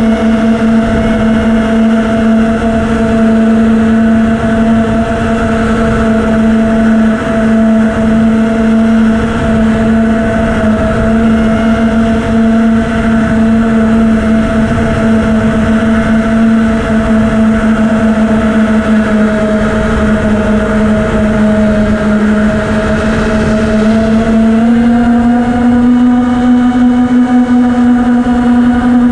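FPV racing quadcopter's brushless motors and propellers buzzing at a steady cruise, heard from the onboard camera with wind rush underneath; the pitch steps up slightly near the end.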